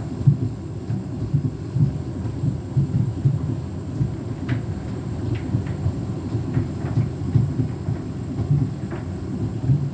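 Beko WTK104121W washing machine running a 90-degree drum-clean cycle: a low, uneven rumble with a few faint clicks in the second half.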